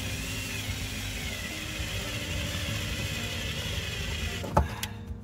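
Cordless drill driving a WRD OrangeBat windshield cut-out winder, running steadily as it reels fiber cutting line through the windshield's urethane bead. A knock about four and a half seconds in, then the drill stops.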